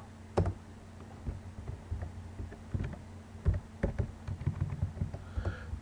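Computer keyboard being typed on: a few scattered keystrokes, then a quicker run of clicks in the second half.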